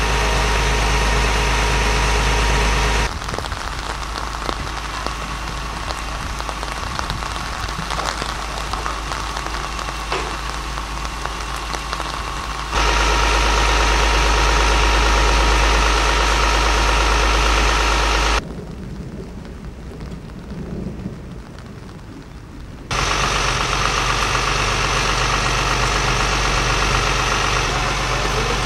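A vehicle engine idling with a steady low hum, in segments that cut off and start abruptly. From about 3 to 13 seconds in, it gives way to a steady hiss with a light patter like rain, and there is a quieter stretch of noise near the 20-second mark.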